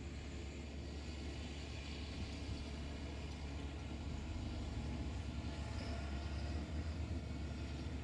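A self-propelled pea viner and a tractor with a trailer running steadily as they work the field, heard as a continuous deep machine sound.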